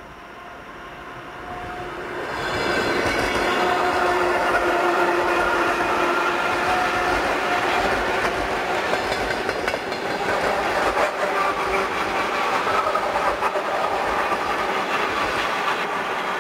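Suburban electric multiple unit passing close at speed: it grows louder over the first two to three seconds, then holds a steady loud rush of wheels on rail with clatter over the rail joints and a steady whine.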